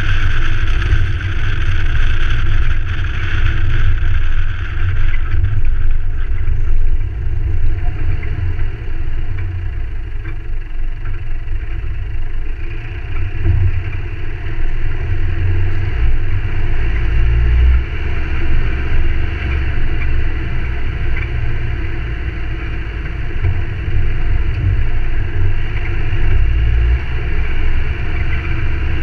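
Ford Ranger 4WD driving along a forest track: a steady, loud low rumble of engine, tyres and running gear. A brighter hiss in the first several seconds drops away about six seconds in, and a few light knocks come through.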